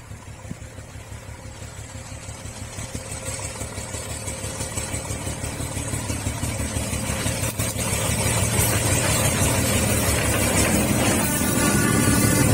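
Diesel locomotive engine throbbing steadily and growing louder throughout. Near the end a wavering high-pitched tone joins it.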